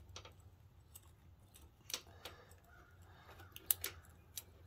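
Small scattered clicks and ticks from handling a carburetor's throttle slide, its spring and the throttle cable by hand, with sharper clicks about two seconds in and near four seconds. A faint steady low hum runs underneath.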